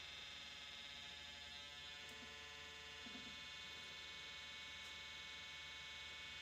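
Faint, steady electric buzz from the small pump of a pressure-switch test setup, running while it builds pressure on the furnace's low pressure switch.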